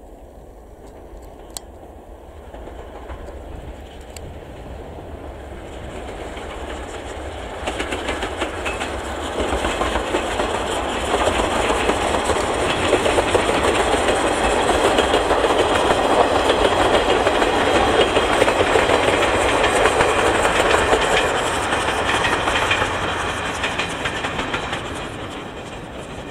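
Steam-hauled passenger train, double-headed by the tank locomotives C11 325 and C12 66, passing: the running rumble and clickety-clack of its wheels build up over about ten seconds, stay loud for about ten more, then fade as it moves away.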